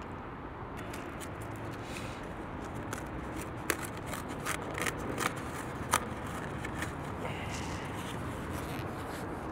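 A foam takeout container and its food being handled by hand: scattered light clicks and scrapes, the sharpest about four and six seconds in, over a steady low background hum.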